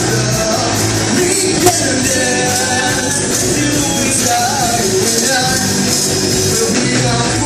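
Live rock band playing through a PA: electric guitars, bass and drum kit, with a singer's voice over it.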